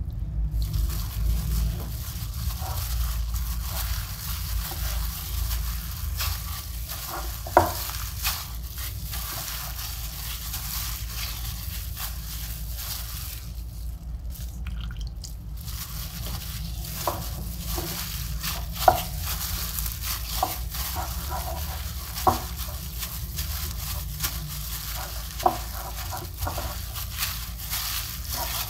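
A plastic-bag-covered hand mixing and squeezing damp golgappa dough in a cut-glass bowl as water is added, with a few sharp clicks against the glass. A steady low hum runs underneath.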